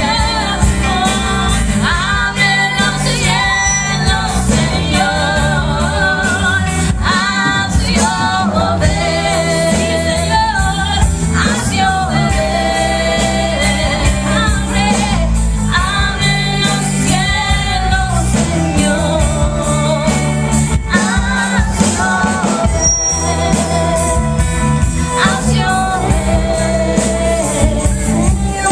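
Live worship music: female voices singing over a full band with bass, drums and guitar.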